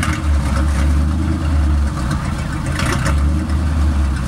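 Bren Carrier's Ford flathead V8 idling, a steady low engine note.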